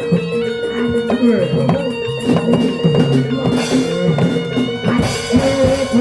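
Javanese barongan accompaniment music played live. Drum strokes fall over a melody of short pitched tones, with one tone held steady underneath.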